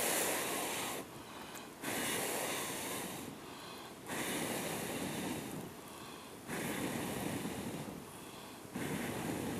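A person blowing on a freshly lit kindling fire to coax it into flame: five long, even blows, each lasting about a second and a half, with short pauses for breath between them.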